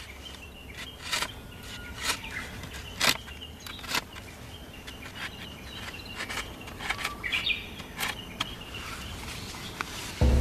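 Outdoor ambience with birds chirping, over scattered scratches and sharp scrapes from the tip of a sheathed sword dragged through gravelly dirt.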